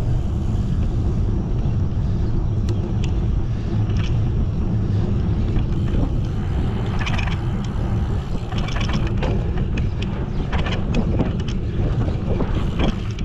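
Wind buffeting the microphone of a camera on a moving bicycle: a steady low rumble, with a few short clicks and ticks in the second half.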